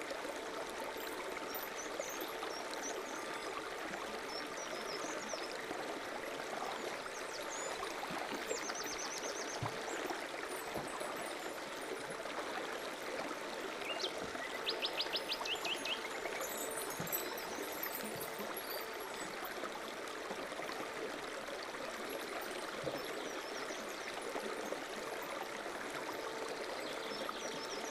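Steady rush of running water, like a stream, with birds chirping briefly twice: once about eight seconds in and again around the middle.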